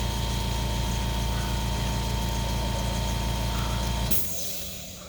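IBM Selectric II typewriter's electric motor and drive running with a steady hum. It is switched off about four seconds in and winds down.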